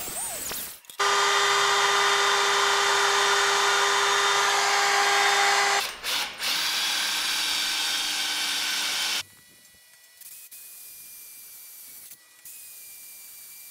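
Makita 18V cordless drill boring into the steel flat-bar frame of a table base: a steady motor whine in two long runs of about five and three seconds. It then carries on much more quietly to the end.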